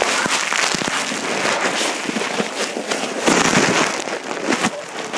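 Heavy handling noise on the recording device's microphone: a dense crackling rustle with many knocks and clicks as the covered phone or camera is rubbed and moved about, loudest a little past halfway.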